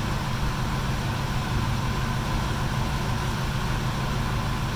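Steady low mechanical hum with a faint steady high tone above it.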